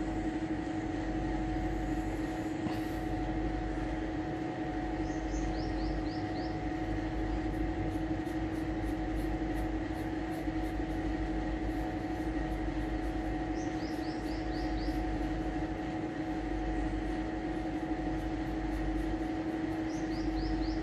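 A steady machine hum with one strong low tone and a few fainter higher tones, like a running fan or air conditioner. Faint scratching of a pen shading on paper runs over it, and three times a short run of high, falling chirps from a bird.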